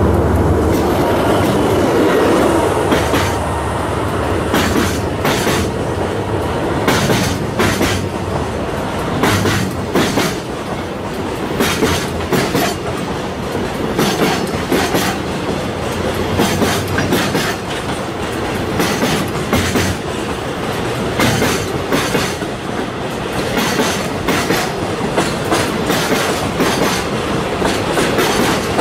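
Container freight train passing close by at speed: its wagon wheels clatter over rail joints in a repeated clickety-clack over a steady rolling rumble. A low diesel engine drone sounds in the first few seconds.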